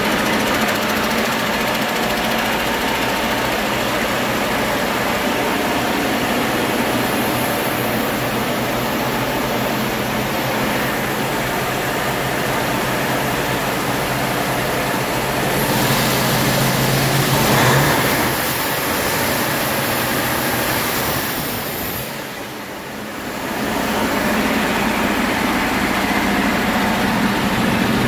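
A used 2016 Detroit Diesel DD15, a heavy-duty inline-six diesel truck engine, running steadily on a test stand. About two-thirds of the way through it swells briefly louder, then dips quieter for a second or so before settling back.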